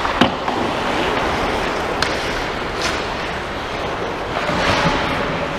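Hockey play in a large indoor ice rink: a steady hiss of skate blades on the ice and hall noise, broken by a few sharp clacks of sticks and puck, one just after the start and others about two and three seconds in.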